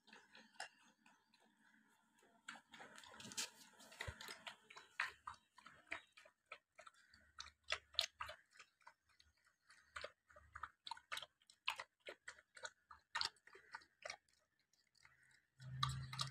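A young dog eating soft, wet food from a bowl, with a faint, irregular run of wet smacks, laps and chewing clicks.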